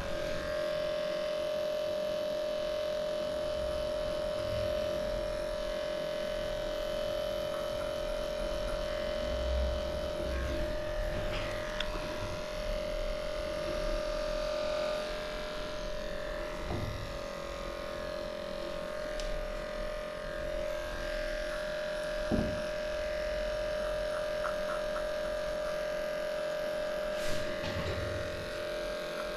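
Electric dog grooming clippers running with a steady buzz, shaving off matted coat from a small dog's legs and feet. Two brief knocks come in the second half.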